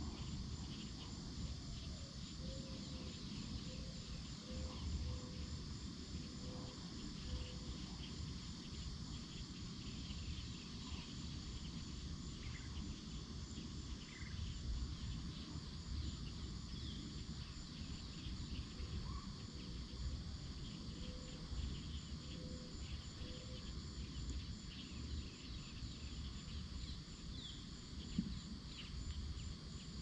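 Steady high-pitched insect chorus of crickets over a fluctuating low rumble of wind on the microphone. A low call repeats several times in two runs, one early and one in the second half, and a few brief higher bird chirps come through.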